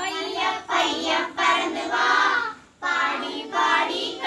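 A group of children singing a Tamil action song about a parrot together, in short sung phrases with a brief break a little under three seconds in.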